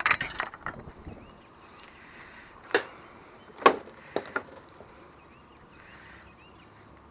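A short clatter, then a few sharp metallic clicks and knocks, the loudest about three and a half seconds in, as wires are taken off a piece of scrap metal.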